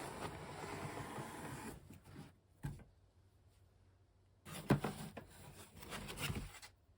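Unboxing packaging being handled: about two seconds of rustling and crinkling, a single sharp knock, then another stretch of rustling with light knocks.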